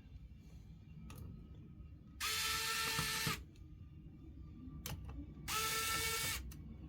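A small handheld power tool's motor runs twice, about a second each time, with a steady whine that dips slightly as it stops. A few faint clicks fall between the two runs.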